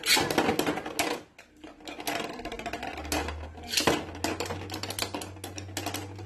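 Beyblade spinning tops ripcord-launched into a plastic stadium, one at the start and another about four seconds in, then spinning, scraping and knocking into each other with fast clicking and rattling. A low steady hum joins about halfway through.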